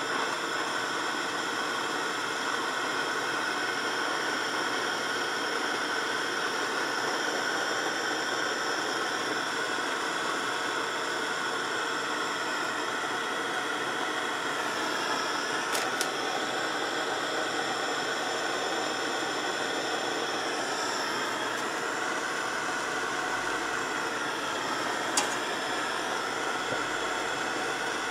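Handheld gas torch flame hissing steadily as it heats an aluminum exhaust stinger for brazing with aluminum rods. Two sharp ticks break through, one about halfway and one near the end.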